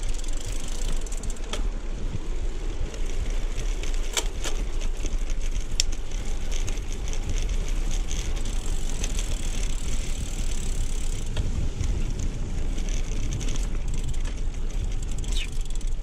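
Carraro 062 Race road bike on 25 mm tyres rolling along a concrete path: a steady rushing of tyre and air noise, with a couple of sharp clicks about four and six seconds in.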